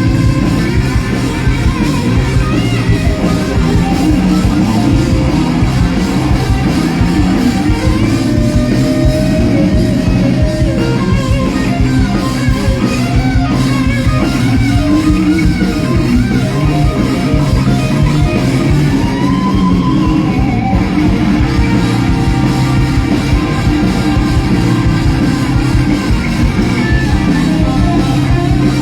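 Live rock band playing loud and steadily: electric guitar over bass and drums.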